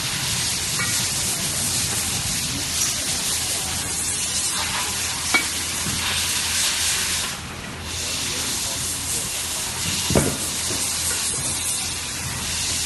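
Steady hiss with a brief dip about halfway through and a couple of small clicks or taps.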